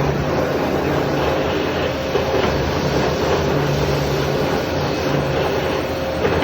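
Machine tool cutting a slot in metal, running steadily: dense mechanical noise with a constant low hum and a fainter higher tone.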